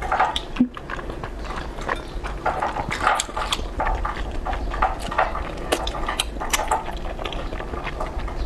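Close-miked eating of thick, chewy fen haozi starch noodles in chili-oil sauce: wet slurping as long noodles are sucked in, with many quick, irregular smacks and clicks of chewing.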